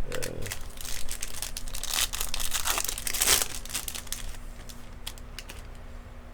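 Plastic wrapper of a Topps baseball card pack being torn open and crinkled, loudest between about two and three and a half seconds in, then a few light clicks as it settles.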